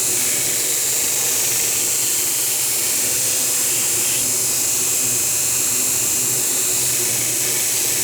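Grinder running steadily while grinding the bevel of a wootz steel blade up to its laid-out ridge line, with a continuous high whine over a grinding hiss.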